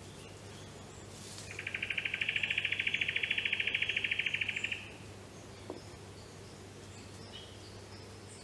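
An animal's pulsing trill, about ten pulses a second, starts about a second and a half in, swells briefly, then holds for about three seconds and stops abruptly. A single faint click follows, over a faint steady low hum.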